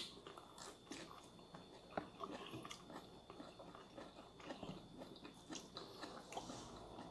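Faint chewing and crunching of food, with scattered small clicks; a bite is taken near the start.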